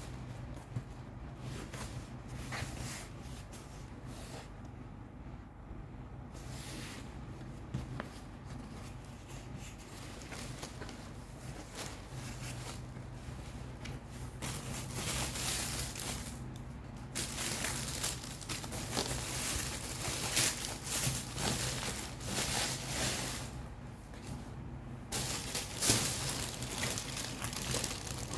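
Packaging being handled and unwrapped: bursts of crinkling and rustling with small clicks, sparse at first and busier and louder through the second half, over a steady low hum.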